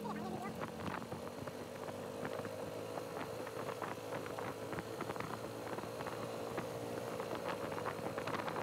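Motorcycle engine running steadily at low road speed, a constant hum with many small clicks and rattles over it.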